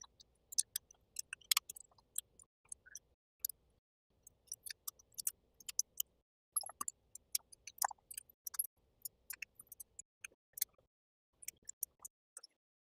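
Many light, irregular clicks and small metallic rattles from handling a gun and ammunition, with no shots fired.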